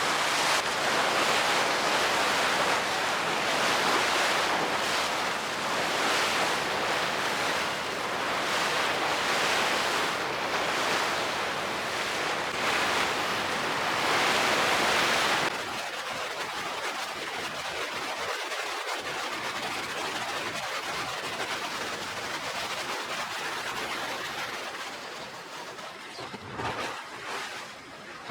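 Steady rushing noise of wind and sea water. It drops suddenly to a quieter hiss about halfway through.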